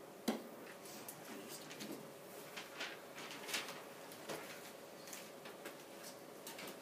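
Quiet classroom room tone: a faint steady hum with a sharp click just after the start and scattered faint ticks and rustles.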